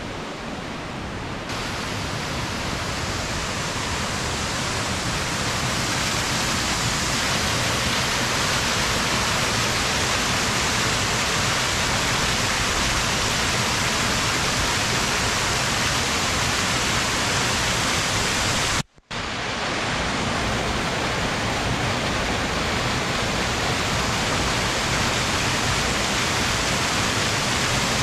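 Rushing water of a mountain waterfall or cascade, a steady, dense roar. It grows louder over the first few seconds and cuts out briefly about two-thirds of the way in.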